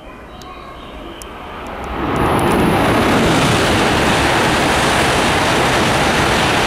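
JR East E5 series Shinkansen passing through a station at speed without stopping: a rushing roar of air and wheels builds over about two seconds, then holds steady and loud as the cars go by.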